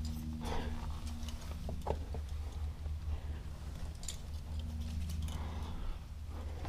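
Rock climber's hands and gear on the rock: a few short scuffs and clicks, such as quickdraws clinking on the harness, over a steady low rumble on the camera microphone.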